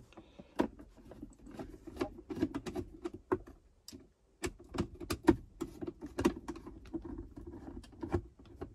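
Crosshead screwdriver turning out the screws that hold the lid's hinge rail in a Range Rover P38 plastic centre console: a run of small irregular clicks and scrapes, with a brief pause about four seconds in.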